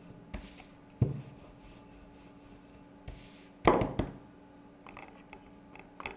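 Wooden rolling pin knocking and rubbing on a floured wooden pastry board as dough is rolled out, then a louder double clunk a little past halfway as the pin is set down on the board, followed by a few light taps.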